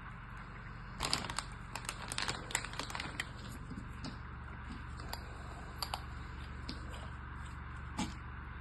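Packaging being handled and opened: a quick flurry of small clicks and rustles about a second in, then scattered single taps, over a steady low hum.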